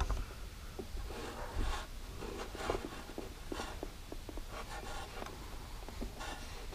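Irregular short scratches and light clicks of a thin metal tool spreading adhesive goop over plastic servo-style connector plugs, with the wires being handled.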